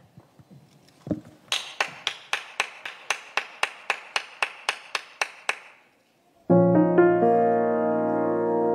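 Recorded music for a contemporary dance solo. After a single low thump about a second in, a run of evenly spaced sharp ticks comes about four a second for some four seconds. A brief pause follows, and then sustained piano chords begin.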